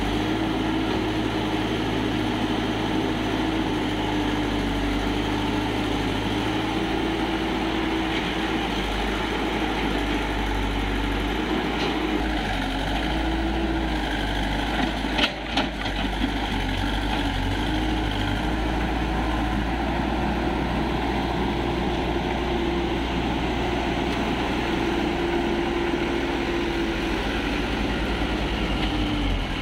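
Hitachi hydraulic excavator's diesel engine running steadily while it digs and loads, its pitch rising and falling slightly under hydraulic load. Two sharp knocks come about halfway through.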